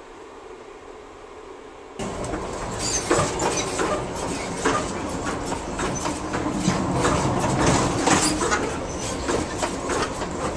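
Train running noise heard inside the Coast Starlight's Pacific Parlour Car: a loud rumble with frequent clicks and rattles of the wheels on the track. It starts suddenly about two seconds in, after a low hum.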